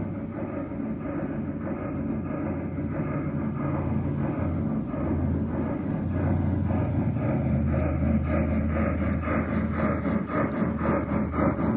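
G-scale model steam locomotive chuffing in a steady rhythm over a low hum, growing louder as it draws near and passes.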